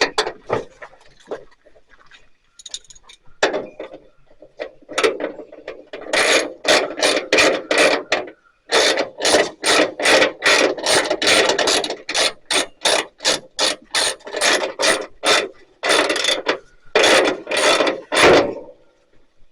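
Hand ratchet wrench clicking in quick runs of back-and-forth strokes, with a few short pauses, as bolts are run in and tightened.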